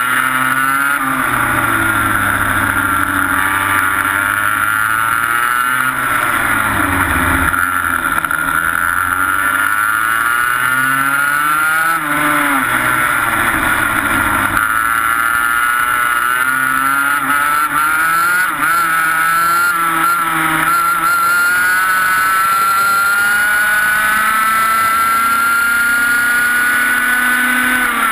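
TaG kart's 125cc two-stroke engine heard onboard, its pitch climbing as it accelerates and dropping each time the driver lifts for a corner, several times over. Near the end it climbs steadily along a straight.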